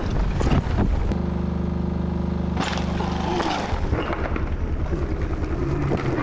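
Wind and rolling noise on a mountain bike's handlebar camera, then a steady motor drone with a fast pulse running for a few seconds.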